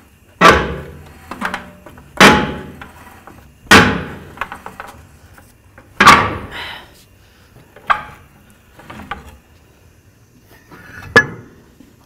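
Heavy blows struck against a Ford F-350 dually's rear wheel to knock it loose from the hub. Four loud strikes come in the first six seconds, each ringing out briefly, followed by lighter knocks and one sharp knock near the end.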